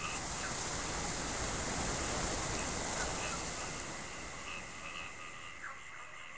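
A steady rushing noise, like wind or surf, with a faint steady high tone running through it. It grows quieter over the last couple of seconds.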